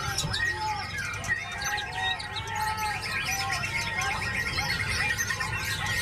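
White-rumped shama (murai batu) singing a fast, varied run of chirps and whistles, with other birds calling over it, above a steady low rumble.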